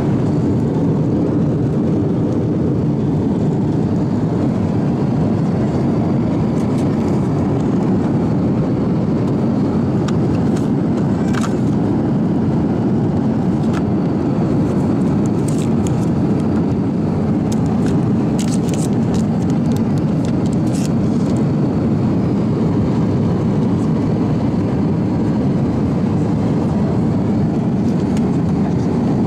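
Steady cabin noise inside an Airbus A350-900 on its approach: a constant low rush of airflow and engine sound, with a few faint clicks in the middle.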